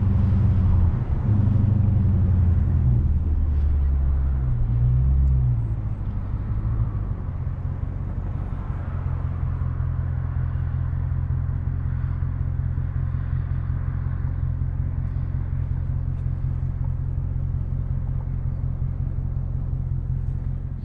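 Mid-muffler-deleted exhaust of a tuned 2020 Dodge Charger Scat Pack's 392 HEMI V8. It runs with a deep rumble for the first several seconds, with the pitch shifting briefly, then settles to a quieter, steady low drone.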